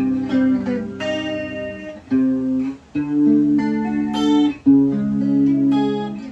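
Guitar chords strummed through a Zoom MS-70CDR pedal on its analog chorus setting, each chord ringing for about a second before the next, with two short breaks.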